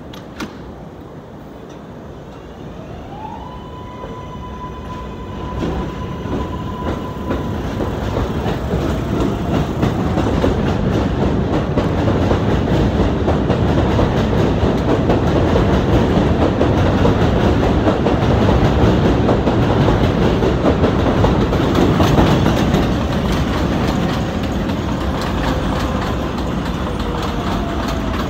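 R142A subway train's doors shutting with a sharp clack, then the train pulling out. An electric motor whine rises and levels off at a steady pitch, and the wheel and rail noise builds loud as the cars pass, easing slightly near the end.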